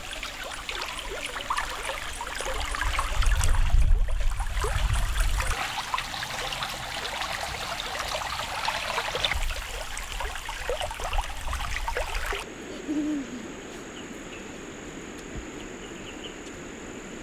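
Stream water running and trickling, with a low rumble loudest around four seconds in. After a sudden change about twelve seconds in, an insect's steady high-pitched drone over quieter outdoor background.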